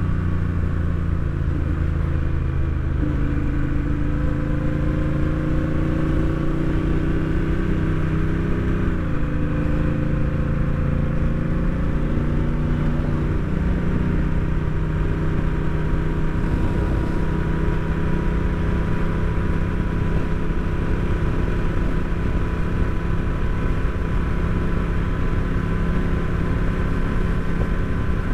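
Honda Rebel 1100 DCT's parallel-twin engine running under way. The revs climb gently, drop quickly about nine seconds in as the automatic dual-clutch gearbox shifts up, then hold steady at cruise, over a low rush of wind and road.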